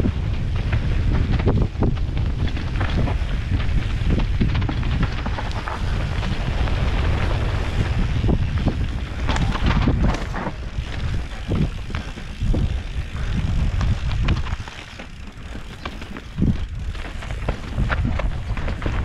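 Wind buffeting a helmet-mounted camera's microphone during a fast mountain-bike descent, over the rattle and knocks of the bike on rough dirt singletrack. The noise dips for a couple of seconds near the end, then comes back with a sharp knock.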